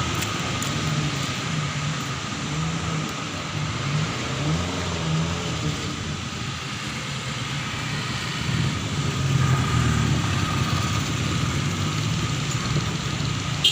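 Tour bus diesel engine labouring up a steep hill, a steady low drone whose pitch wavers, growing louder about nine seconds in.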